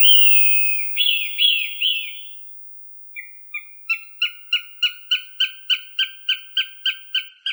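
Hawk calling: a long, falling scream, then three short down-slurred notes. After a pause of about a second comes a rapid run of sharp, evenly spaced calls, about three a second, faint at first and growing louder.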